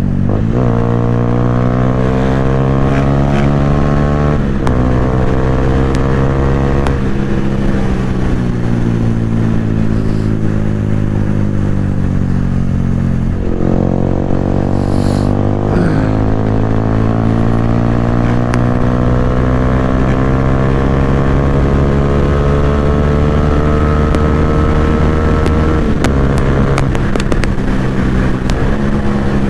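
Yamaha R15's single-cylinder engine through a loud aftermarket Akrapovic exhaust, pulling as the bike is ridden. The pitch climbs and dips at gear shifts, falls away for several seconds as the throttle closes, then climbs long and steadily from about halfway before dropping again near the end.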